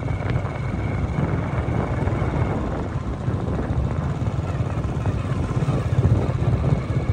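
Steady low rumble of a vehicle on the move, with wind buffeting the microphone. A faint thin high whine fades out about two and a half seconds in.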